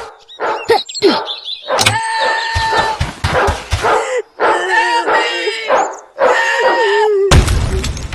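A string of high, dog-like whimpering and yelping calls, about half a dozen, each with a wavering, bending pitch.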